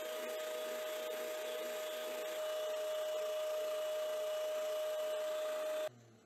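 450 W oscillating spindle-and-belt sander running with a steady hum while a wooden board is sanded against its spinning drum. The sound cuts off abruptly near the end.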